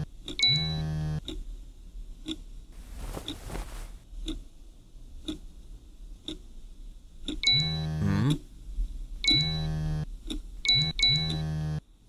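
Mobile phone sound effects for incoming text messages: short buzzing bursts, two near the start and four in the second half, over a clock ticking about once a second.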